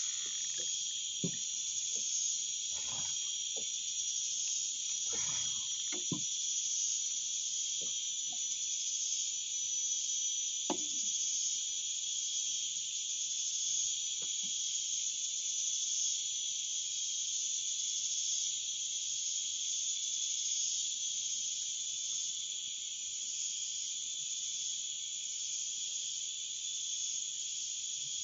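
Dense chorus of insects droning high and steady with a slow pulsing. A few soft knocks sound in the first several seconds and one near the middle.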